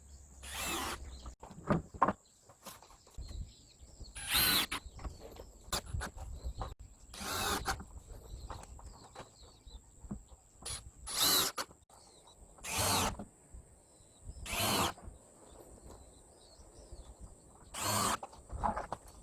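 Power drill run in seven short bursts of about half a second to a second each, as in driving screws or boring into wood, with small knocks and clicks between the bursts.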